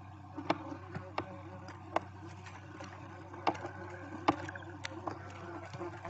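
Barn owl nest box: a handful of sharp clicks and knocks as the owlets shift about on the nest floor and against the wood, over a steady low hum.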